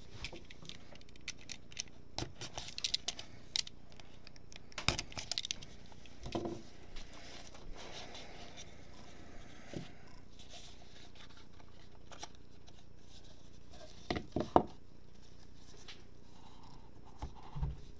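A cardboard trading-card box handled with rubber-gloved hands: scattered scratching, tearing and rustling of card stock, then a few sharp knocks of the box against the table about 14 seconds in, and a couple more near the end.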